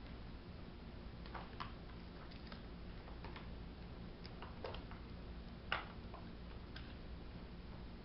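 Faint scattered clicks and small squeaks from the plastic syringes and tubing of a model hydraulic crane as its plungers are pressed and the arm moves, with a sharper click about six seconds in, over a low steady hum.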